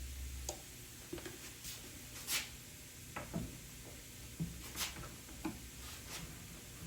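Scattered light clicks and taps, about eight in all, the sharpest a little over two seconds in, as cabinet door and hinge hardware is handled and fitted.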